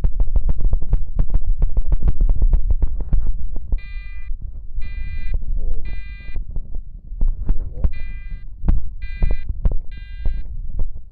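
Electronic fire alarm horn sounding in the temporal-three evacuation pattern: three short tones about a second apart, a pause, then three more, starting about four seconds in. Under it and before it, a rapid run of low thumps and clicks, loudest in the first few seconds.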